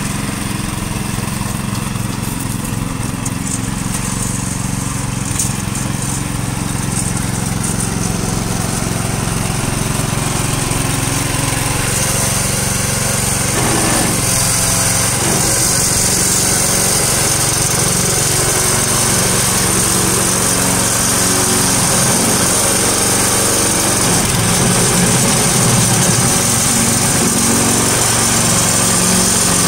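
Small engine of a tracked power barrow (mini dumper) running steadily as the machine is driven and its hopper tipped, growing slowly louder.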